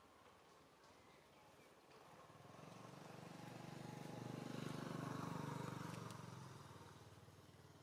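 A motor vehicle passing by, its engine hum swelling to a peak about five seconds in and then fading away.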